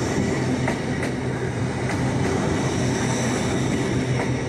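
Lumo Class 803 electric multiple unit arriving and passing close by on the platform road: a steady rumble and low hum of the moving train with a few faint clicks.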